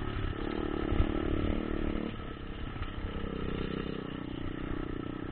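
Motocross bike engine running steadily as it is ridden, easing slightly about two seconds in, over a low rumble.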